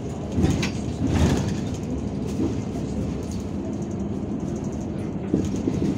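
Cabin noise inside a moving Irisbus Citelis 12M city bus: a steady engine and road rumble, with a few short thumps and rattles about half a second in, about a second in, and again near the end.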